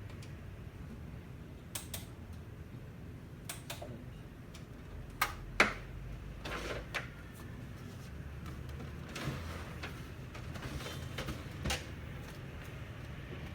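Scattered clicks and knocks from parts of an HP Color LaserJet Pro printer being handled during disassembly, the loudest two close together about five seconds in, over a low steady hum.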